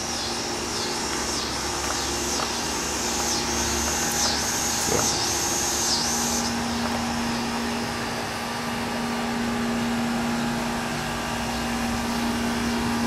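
Steady mechanical hum. During the first six seconds a high buzz swells and fades about once a second, and a steady low tone joins about six seconds in.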